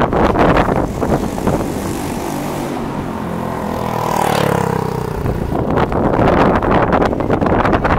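A vehicle passes by about halfway through, its pitched sound dropping as it goes past, over a steady rushing noise.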